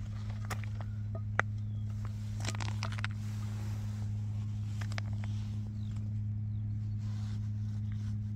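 A steady low machine hum, with scattered clicks and scrapes of loose limestone rubble shifting underfoot.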